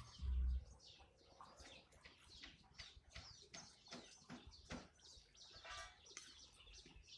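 Small birds giving quick, high chirps that fall in pitch, repeated over and over, with one harsher, buzzier call about six seconds in. A short, low rumble comes right at the start.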